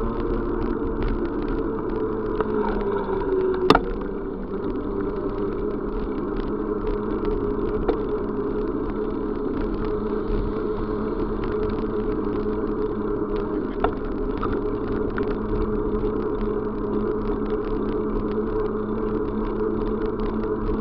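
Steady drone of a vehicle in motion. Its pitch eases down about three seconds in, with one sharp click just after that and a couple of lighter ticks later.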